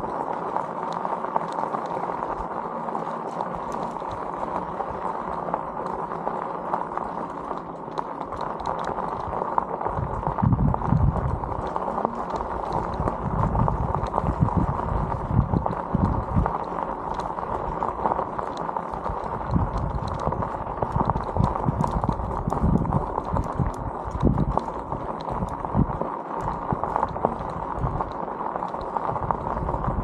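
Mobility scooter rolling along a rough gravel trail: its electric drive runs steadily while the wheels and frame rattle and knock over the bumps. The jolts get heavier from about ten seconds in.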